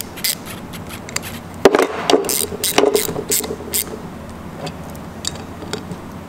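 Ratchet wrench and tools working on metal, tightening the bolts of a pneumatic exhaust power valve on an Aprilia RS 125 two-stroke cylinder. A few faint clicks come first, then a run of sharper knocks and clicks from about two to four seconds in.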